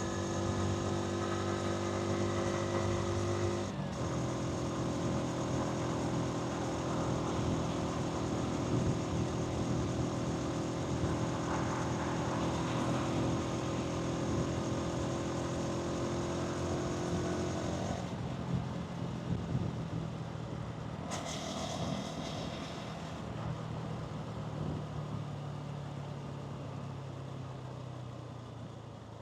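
Hansom Bike Venett 125cc motorcycle engine and exhaust while riding in traffic, with road and wind noise. The engine note holds steady, shifts about four seconds in, then settles to a lower, quieter note in the last third.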